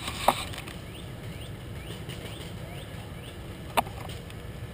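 Two sharp clicks about three and a half seconds apart, the second the louder, with a bird chirping a run of short rising notes between them.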